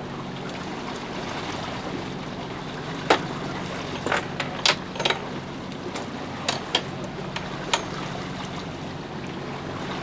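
Steady rush of water and a low hum aboard a sailing boat under way, with several sharp clicks and knocks between about three and eight seconds in.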